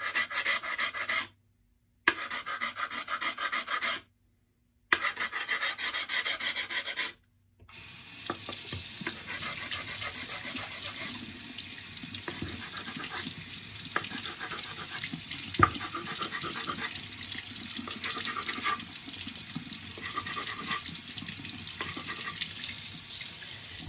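Stone grinding against the edge of a sharpening water stone in repeated back-and-forth strokes, beveling the edge and wearing away chips. The grinding is broken by three short silences in the first seven seconds, then runs on steadily, with one sharp tick about two-thirds of the way through.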